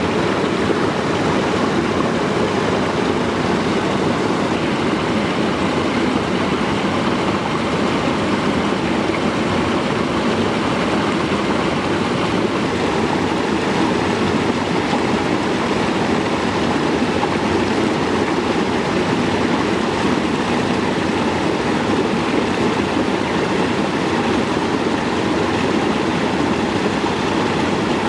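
Steady rushing of flowing water, as of a forest stream, with no breaks or changes.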